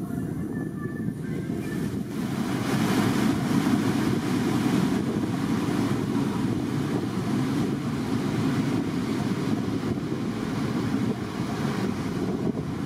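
A tour boat under way: wind buffeting the microphone over rushing water and a steady engine hum, the wind and water hiss growing louder about two seconds in.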